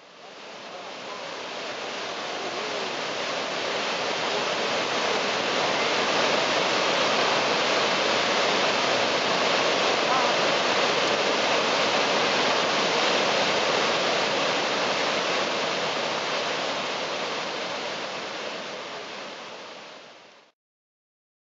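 Niagara Falls: water plunging into the gorge, a steady rushing noise that fades in over the first few seconds and fades out near the end before cutting off.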